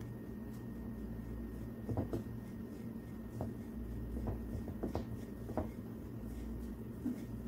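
Fingers rubbing a crumbly milk-powder dough mixture in a ceramic bowl: scattered short scrapes and taps against the bowl from about two seconds in, over a steady low hum.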